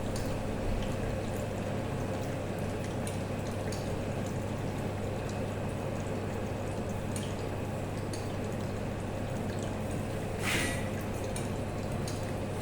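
TIG welding arc burning steadily: a constant hiss over a low electrical hum, with faint scattered crackles. There is a brief louder surge about ten and a half seconds in.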